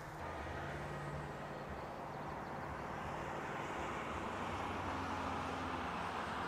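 A steady low rumble and hiss that slowly grows louder, with faint held low tones underneath.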